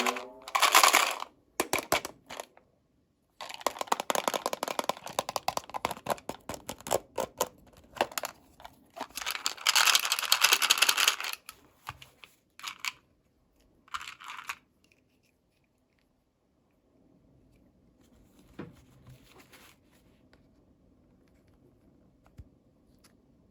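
Packaging being torn and crinkled by hand in bursts of rapid crackling, which die away about fifteen seconds in, leaving a few faint ticks.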